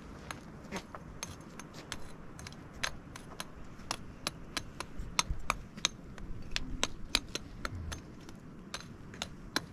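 Irregular sharp clicks and clinks, a few a second, light and hard like small objects knocking together.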